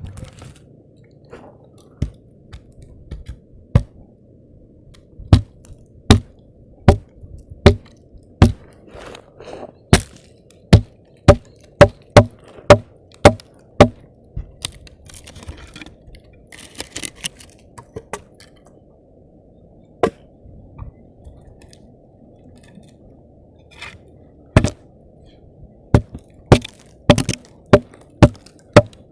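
Repeated sharp chopping blows, coming in runs of about one or two a second with a few longer pauses, over a steady low background noise.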